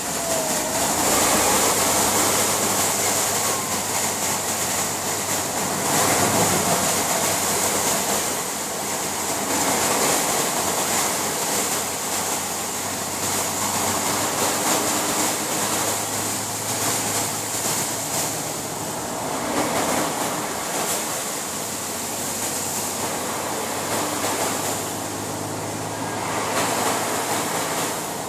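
Floodwater swishing and splashing under a truck's tyres as it drives through a flooded road, heard from inside the cab over the low, steady hum of its engine. The water noise swells and fades several times.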